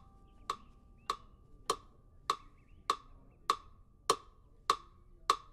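A smartphone metronome app clicking a steady beat of about 100 clicks a minute. Each click is short and sharp, with a brief ring.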